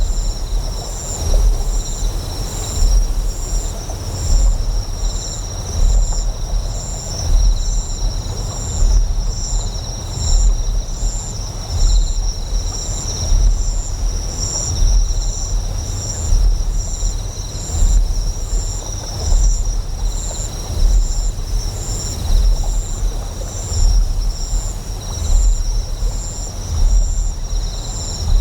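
Deep generator hum that swells and fades in a slow pulse about every second and a half, under steady high-pitched insect chirring with a regular chirp repeating about once a second.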